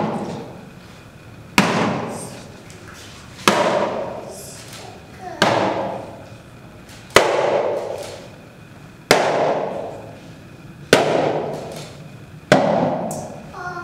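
Seven sharp cracks at an even, slow pace, about one every two seconds, each followed by a long echo in a large stone-walled hall.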